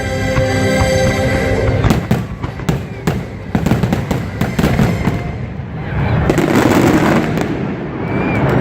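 Fireworks going off in a rapid string of bangs over orchestral show music, starting about two seconds in, then thickening into a dense crackling rush near the end.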